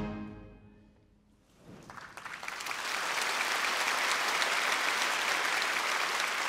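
A wind band's final chord dies away in the hall's reverberation, then after a brief hush the audience breaks into applause that builds within a second and holds steady.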